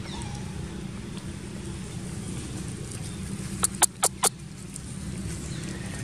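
A steady low rumble like a distant motor vehicle running. A little past halfway come four sharp clicks in quick succession.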